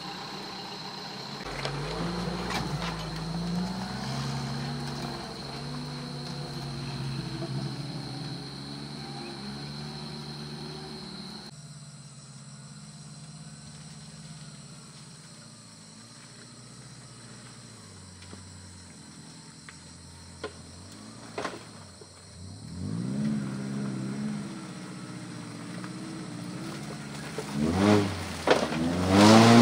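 Off-road 4x4 engine revving and labouring, its pitch rising and falling. It drops away abruptly about a third of the way in, then revs up hard again near the end.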